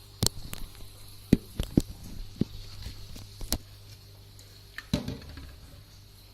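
Sharp clicks and knocks of a plastic toy crane being handled and moved, about seven separate taps spread unevenly over several seconds.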